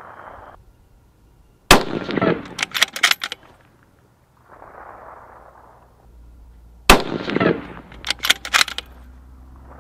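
Two shots from a scoped precision bolt-action rifle fired prone at a 1,000-yard target, about five seconds apart. Each sharp report is followed by a quick run of sharp cracks lasting about a second and a half.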